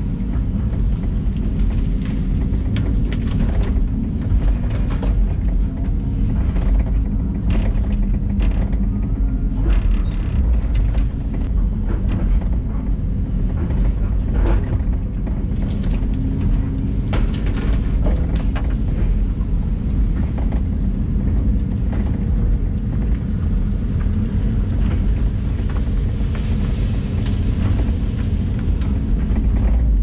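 LiuGong excavator's diesel engine and hydraulics running steadily under load, heard from inside the cab. Scattered cracks and knocks come through as the bucket and thumb work the brush.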